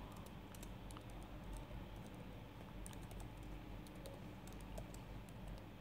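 Faint computer keyboard typing, irregular key clicks.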